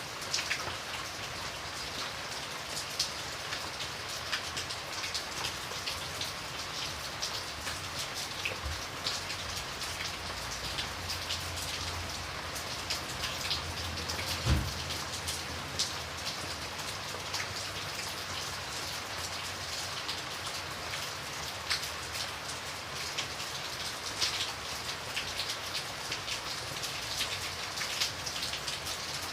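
Steady rain, with many individual drops pattering in a dense, even hiss. There is one louder dull thump about halfway through.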